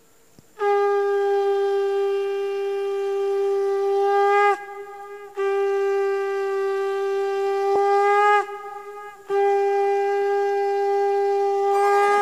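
Conch shell (shankha) blown in three long, steady blasts of about four seconds each, with short breaks between them, each blast ending in a brief upward bend in pitch. Instrumental music begins to come in under the last blast near the end.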